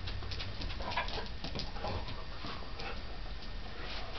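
A poodle and another dog playing tug of war: faint dog noises and scattered light scuffling clicks over a low steady hum.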